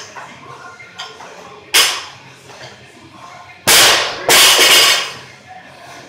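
A loaded 115 lb barbell dropped from overhead onto the gym floor after a snatch. It lands with a loud crash a little under four seconds in and bounces into a second long, rattling crash about half a second later. A shorter sharp knock comes about two seconds in.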